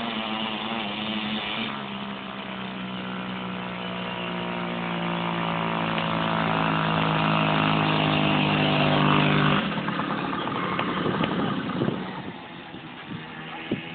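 Small two-stroke motorbike engine running at high revs, its pitch rising slowly as it gets louder. About ten seconds in the steady tone breaks off abruptly into a rougher, quieter engine noise with a couple of sharp knocks.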